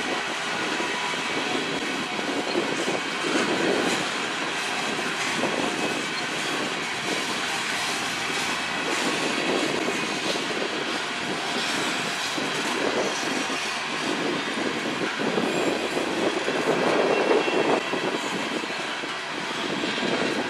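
Covered hopper cars of a freight train rolling slowly past, with a steady wheel-on-rail rumble and the clatter of wheels over rail joints.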